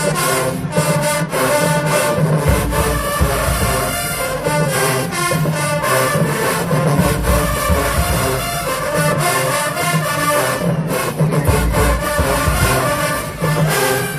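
HBCU marching band playing in the stands: brass with a heavy drum beat.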